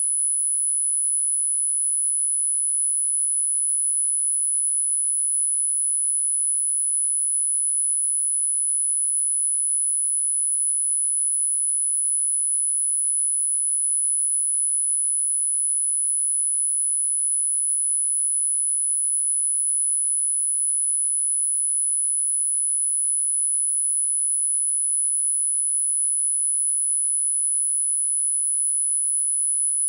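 A single steady high-pitched pure tone: a continuous electronic sine wave from a subliminal frequency track, unchanging in pitch and level.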